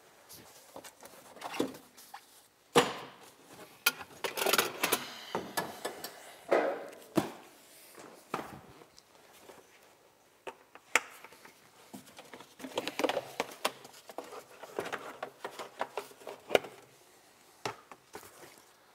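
Panels being handled and pulled off a Polaris RZR UTV: scattered knocks, clatters and rustling of plastic and metal. The sharpest knocks come about 3, 11 and 16.5 seconds in.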